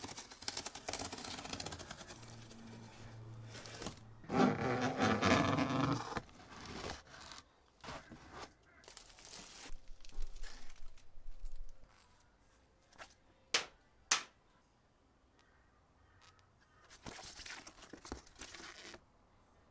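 Packing tape peeled and torn off a cardboard box, the tearing loudest a few seconds in, followed by cardboard and plastic wrap rustling as the box is opened. There are two sharp clicks about two-thirds of the way through, and paper rustles near the end as a manual is unfolded.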